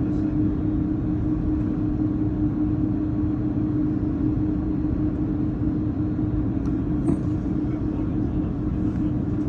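Steady cabin noise inside an Airbus A330-203 on the ground before takeoff: a low rumble with one constant hum, unchanging throughout.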